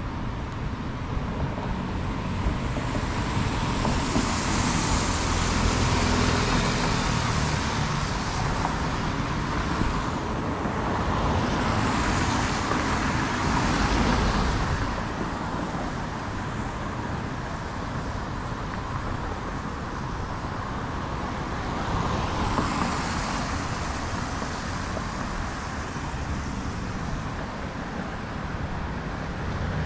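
City street traffic: cars and other vehicles driving past in a steady hum, with several louder passes swelling up and fading away.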